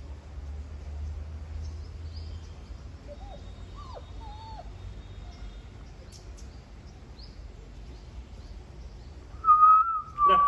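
Faint bird chirps over a low background rumble. Near the end, an English Labrador puppy gives two short, high whines, the loudest sound here.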